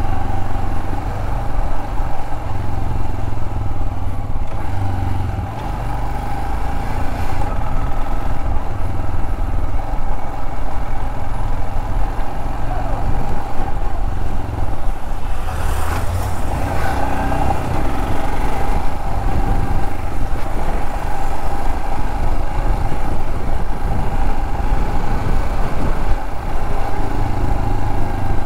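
Royal Enfield Himalayan 411's air-cooled single-cylinder engine running steadily while the bike is ridden at low speed through town traffic, with a low rumble of wind on the microphone.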